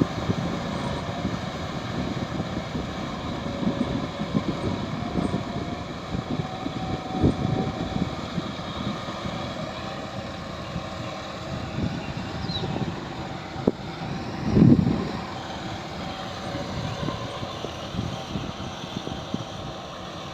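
Tractor diesel engine running steadily, with irregular low rumbling gusts over it and one louder burst nearly three quarters of the way in.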